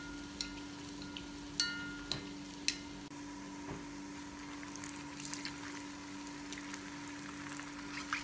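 Kofta balls deep-frying in hot oil in a cast-iron kadai: a steady sizzle, with a few sharp clinks of a steel spoon against the pan in the first three seconds, some ringing briefly, as the balls are basted and turned. A steady low hum runs underneath.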